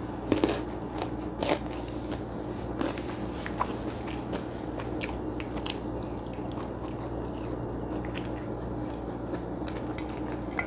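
A person chewing a mouthful of rice and fried food close to a clip-on microphone, with wet mouth clicks and a few crunches scattered through, over a steady low hum.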